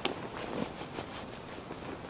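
A string of light, sharp taps and clicks, several in the first second or so, over low background noise.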